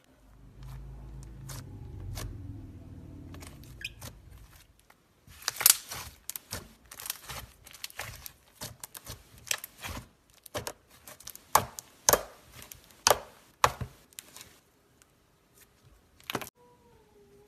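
Slime being handled with the hands: a low, muffled squishing for the first few seconds, then a long run of sharp sticky clicks and pops as it is pressed and pulled.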